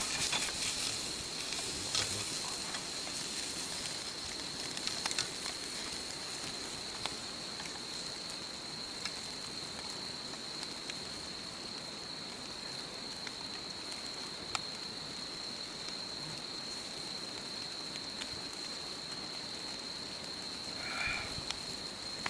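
Meat sizzling on a grill grate over a crackling wood fire, with a few sharp pops and clicks. A steady high chirring of night insects runs underneath.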